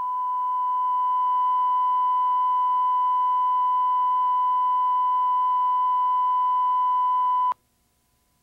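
Steady pure test tone, a broadcast line-up tone between TV commercials on videotape, holding one pitch and cutting off suddenly about seven and a half seconds in.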